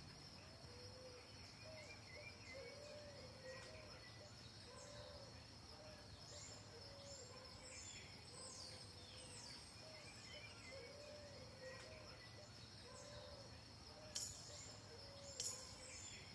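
Faint outdoor ambience: birds chirping in short falling notes, a soft low call repeating about once a second, and a steady high insect trill. Two sharp clicks near the end.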